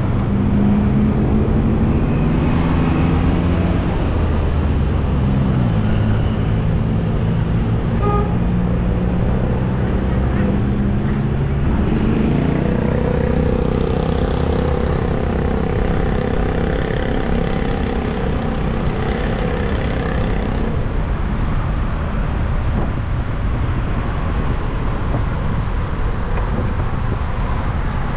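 Busy city street traffic heard from a moving bicycle: small engines of motorbikes, a tuk-tuk and a motorcycle tricycle run nearby over a steady low rumble of road noise. A lower engine note fills the first dozen seconds, then a higher engine hum passes from about twelve to twenty seconds in.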